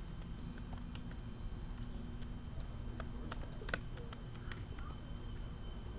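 Pigeons pecking and stepping about, making scattered light taps and clicks over a steady low rumble, with a few faint high chirps near the end.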